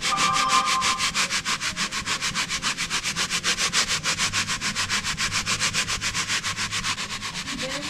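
Dry brine of maple sugar and salt being shaken out of a bowl onto fish fillets, the grains rasping in a rapid, even rhythm.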